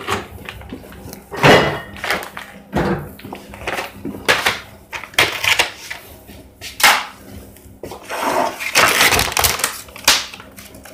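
A plastic packet of sliced ham crinkling and being pulled open by hand, in irregular bursts of crackling.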